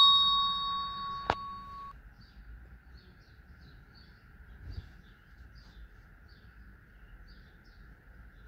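A bell-like chime rings down over the first two seconds, with a sharp click about a second in, from a subscribe-button sound effect. Then come faint bird chirps every half second or so over a steady hiss.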